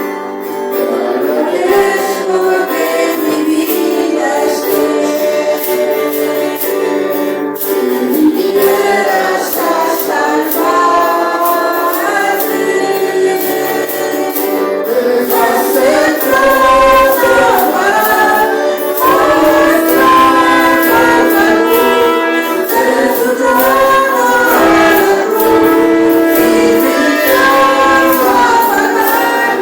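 Church congregation singing a praise hymn together, many voices including women's over instrumental accompaniment with a steady percussion beat; the bass comes in about halfway through.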